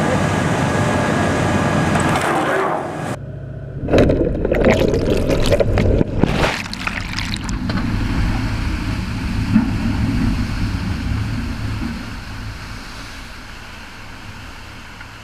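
Logs sliding off a tilting barge and splashing into the river: heavy churning and splashing water, loudest from about four to six seconds in. Under it is a steady low boat-engine rumble that fades away near the end.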